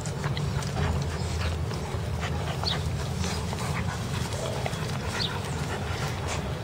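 Young Dogo Argentino puppies play-fighting, panting with a few short high squeaky whimpers, over rustling and a steady low rumble.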